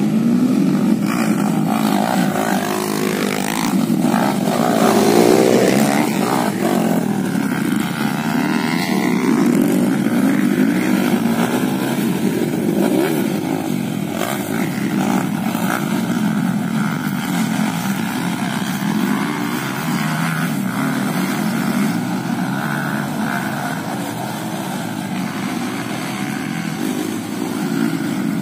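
Modified two-stroke Yamaha F1ZR (Fiz R) underbone motorcycles running on a dirt track, their engines revving up and down as they pass, loudest about five seconds in.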